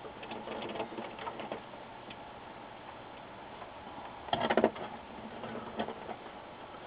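Hand screwdriver driving small screws into a monitor's sheet-metal shield and chassis: light, irregular metallic clicks and scraping, with a louder run of clicks about four and a half seconds in as a screw is tightened.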